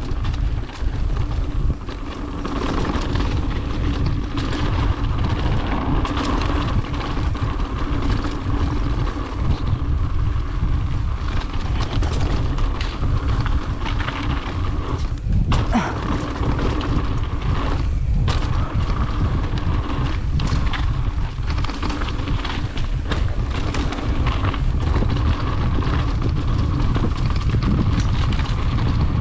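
Wind buffeting the microphone over the rumble and rattle of a mountain bike riding a rough downhill trail, with scattered knocks from bumps and a steady buzz underneath.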